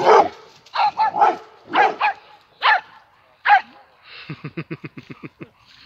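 Dog barking: about six loud, sharp barks in the first three and a half seconds, followed near the end by a quick run of short, low pulses, about eight a second.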